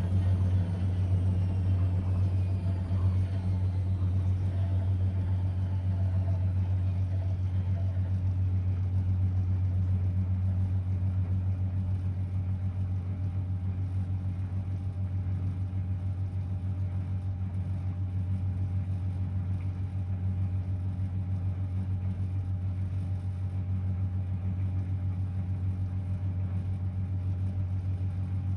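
Blomberg WA391 washing machine running. A motor whine falls steadily in pitch over the first several seconds as the drum slows, then fades, leaving a steady low hum.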